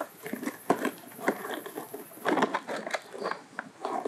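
Rustling and crinkling of the black plastic fabric flaps and cord ties on a biogas digester's sandbag pouches as they are handled and tied, in irregular short scrapes and taps, with a louder rustle a little past two seconds in.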